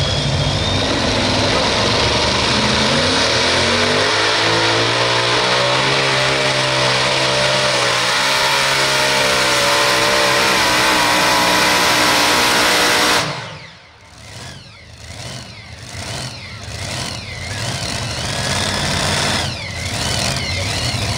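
Modified pulling tractor with two supercharged engines running at full throttle, its pitch climbing steadily through the run. The sound cuts off abruptly about 13 seconds in, and quieter, uneven engine sound follows and builds again near the end.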